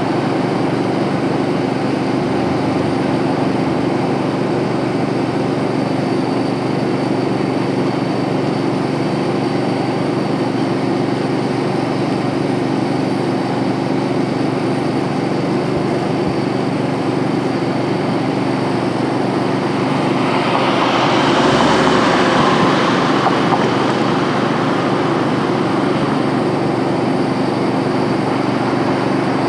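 Steady engine hum, like an idling vehicle, with a few steady tones in it. About 20 seconds in, a louder hiss swells for a few seconds and then fades.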